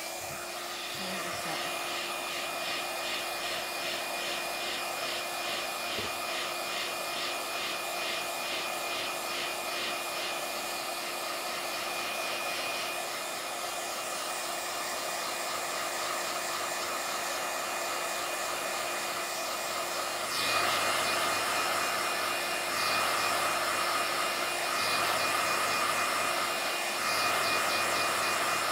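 Handheld iTeraCare terahertz wand running, its built-in fan blowing steadily like a hair dryer with a thin steady whine. About twenty seconds in it gets louder and its tone changes.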